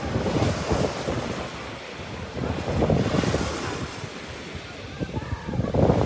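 Small waves breaking and washing up a sandy beach, the surf swelling and easing every few seconds, with wind buffeting the microphone.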